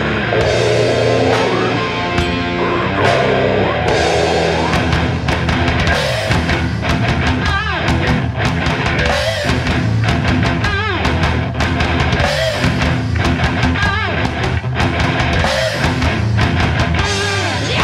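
Death/black metal recording: distorted electric guitars, bass and a pounding drum kit playing without vocals. From about six seconds in, a wavering high note recurs about every second and a half over the riff.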